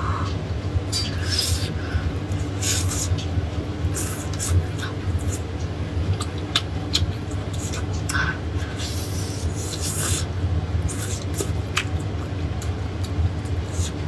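A whole roast chicken being torn apart by hand and eaten: skin and meat pulling apart, bites and chewing. These come as a run of short, irregular crackles and smacks over a steady low hum.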